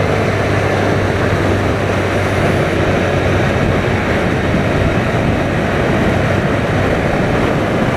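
Car in motion with loud, steady wind and road noise rushing over the microphone, over a low, even engine hum.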